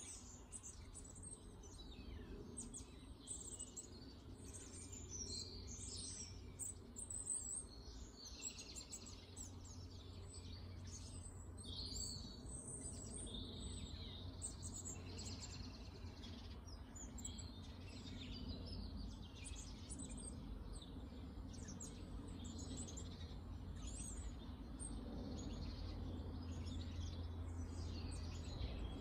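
Small garden songbirds chirping and singing, many short high calls and trills overlapping throughout, over a steady low background hum.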